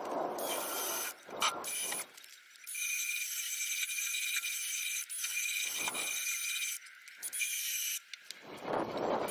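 Cordless drill with a wire wheel brush spinning against rusty steel on a car's underside, wire-brushing off scaly rust. The motor whines steadily, with rasping scraping in a few spells, loudest near the start and near the end.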